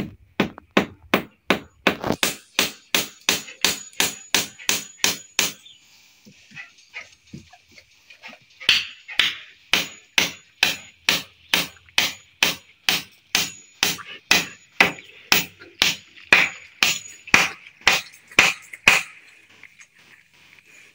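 A hammer striking in steady runs of sharp blows, about two to three a second, with a pause of a few seconds between a shorter first run and a longer second one.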